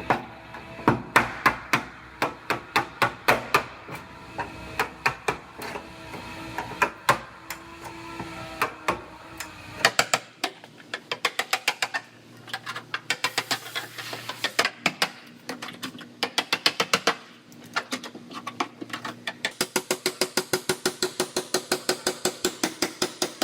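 Hammer blows on car body sheet metal, struck in quick runs of several a second, over background music.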